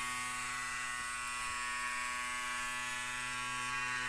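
Small DC toy motor buzzing steadily as it spins a weight on its shaft, shaking the homemade robot on its brush feet.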